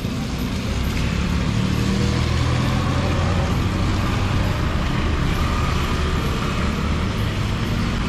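A motor vehicle engine running with a steady low drone, along with road-traffic noise.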